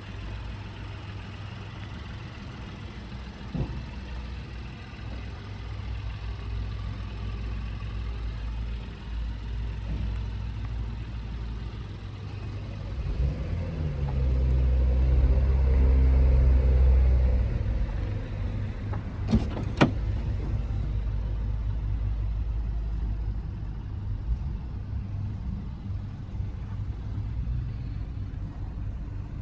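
Mini Cooper's 1.5-litre three-cylinder petrol engine idling steadily, louder for a few seconds in the middle. Two sharp clicks come about two-thirds of the way through.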